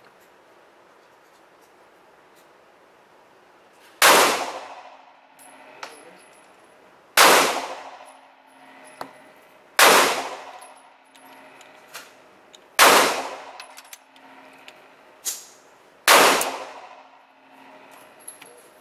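Gunshots in an indoor shooting range: five single shots about three seconds apart, each a sharp crack followed by a long echo off the range walls, with small clicks of gun handling between them.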